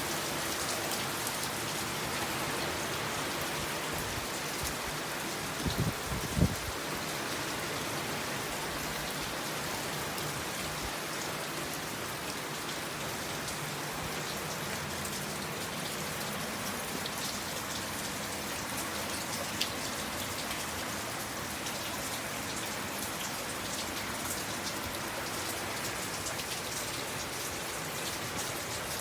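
Heavy typhoon rain falling steadily on surfaces, an even hiss throughout. A few low thumps come about six seconds in, and a single sharp tap near twenty seconds.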